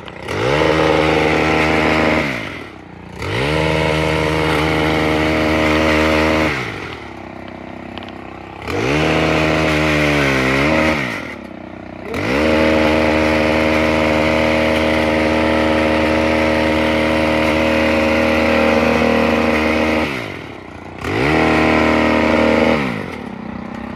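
Small engine of a gas-powered pole saw revving to full throttle in five bursts and falling back to idle between them. About ten seconds in, its pitch wavers and sags as the chain bites into a branch.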